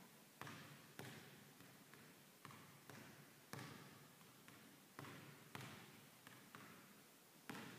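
Basketball dribbled low on a hardwood gym floor: faint, sharp bounces about once or twice a second, each followed by the echo of the hall.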